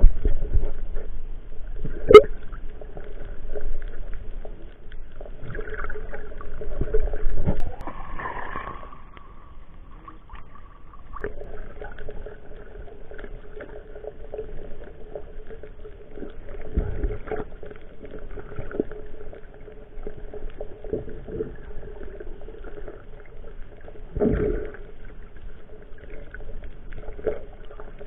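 Underwater sound picked up through an action camera's waterproof housing: muffled water noise over a steady hum, with a few sharp knocks and short bubbling bursts.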